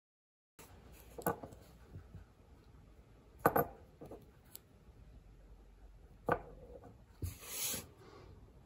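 Oil drain plug handled on a workbench: a few light clicks and taps of metal on the board, and a short scrape near the end.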